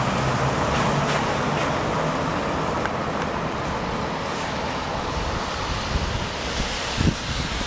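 Wind buffeting the microphone, a steady rushing noise over traffic, with a vehicle engine humming low during the first two seconds and a couple of soft thumps near the end.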